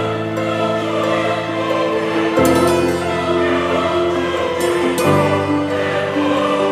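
Background music: loud held chords that change to a new chord twice, about two and a half seconds apart.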